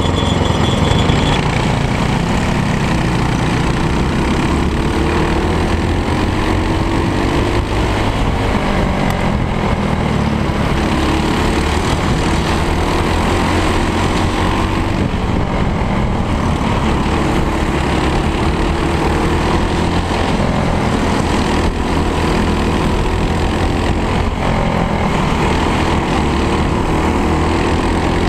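Racing kart's single-cylinder four-stroke Briggs & Stratton World Formula engine running at race pace, its pitch rising and falling as the throttle opens and closes through the corners.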